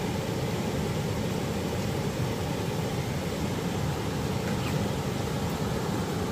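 River water rushing over shallow rapids: a steady, even noise, heaviest in the low end.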